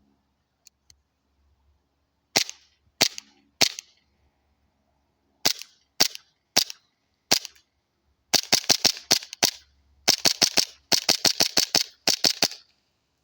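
Tokyo Marui M9 Beretta gas-blowback airsoft pistol firing: sharp cracks with the slide snapping back on each shot. It starts with three single shots about half a second apart, then four more spaced slowly. In the second half it fires rapidly, about five shots a second, in several quick strings.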